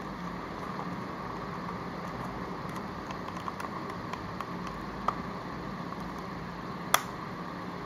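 Steady room hum with a few light plastic clicks as a part is fitted onto a plastic toy bubble gun, the sharpest click about seven seconds in.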